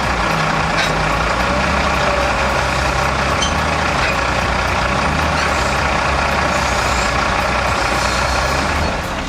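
Engine of a heavy log-handling machine running steadily under work, easing slightly near the end.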